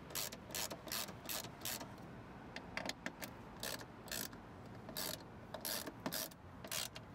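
Hand socket ratchet clicking in short runs of strokes with brief pauses, as the bolts holding a car's window motor are backed out.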